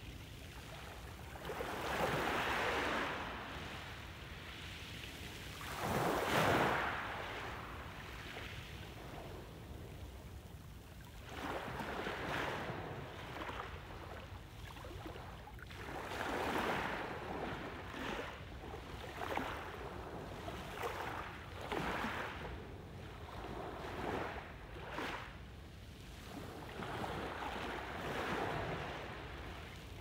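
Small sea waves breaking on a pebble beach and washing over the stones, each surge of surf swelling and fading every three to five seconds.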